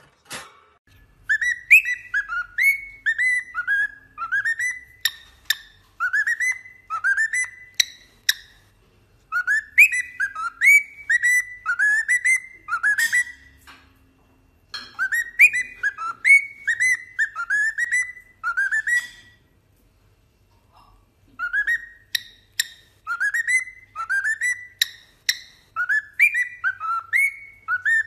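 Cockatiel whistling a short tune made of quick upward-swooping notes, repeating the phrase four times with brief pauses between.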